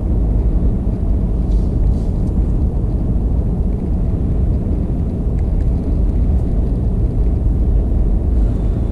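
Steady low road and engine rumble of a moving vehicle, heard from inside the cabin.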